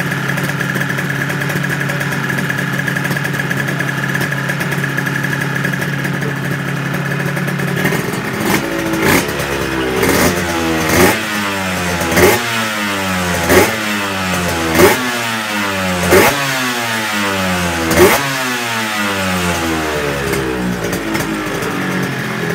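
Honda NSR250 two-stroke V-twin with expansion-chamber exhaust idling steadily. About eight seconds in, the throttle is blipped about nine times in quick succession, each rev rising sharply in pitch and falling back, before it settles to idle again.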